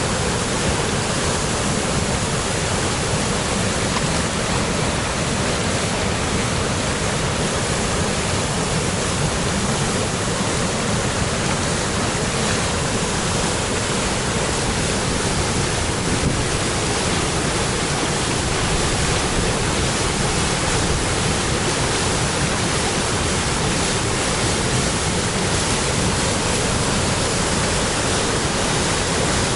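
Waterfall on a spring river in full flow: a steady, loud roar of falling water.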